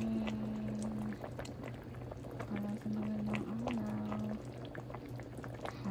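Beef bulalo broth simmering in a steel stock pot, with small bubbles popping and crackling at the surface. Over it sound a low steady hum and a louder low tone that holds and steps in pitch, breaking off about a second in and returning a second and a half later.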